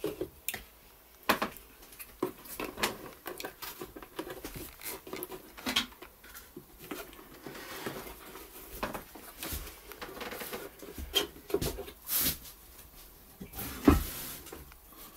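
Scattered clicks, knocks and rustles from handling a large plastic bottle, with a heavier thump about a second before the end.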